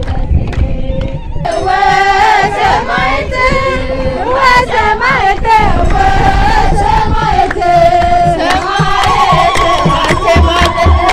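A crowd sings an Ethiopian Orthodox hymn over repeated low drum beats. About two-thirds of the way through, a high wavering ululation joins in.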